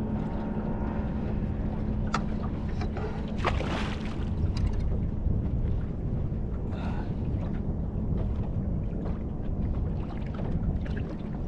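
Wind buffeting the microphone and water against a small boat's hull, a steady low rush, with a few sharp clicks and knocks about two and three and a half seconds in.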